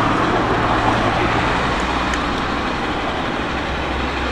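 Steady background rumble of traffic, an even noise without distinct events.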